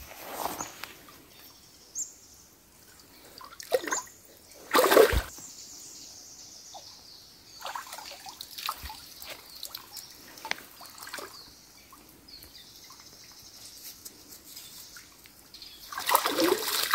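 Stream water splashing and trickling as hands work in the shallows and legs wade along the bank. There is one sharp splash about five seconds in, the loudest, then smaller splashes and drips, and heavier sloshing near the end.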